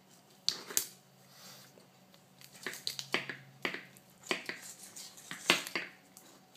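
Handling noises as a LiPo battery is fitted into a quadcopter frame: two sharp clicks about half a second in, then a busier run of clicks, taps and scrapes, loudest near the end.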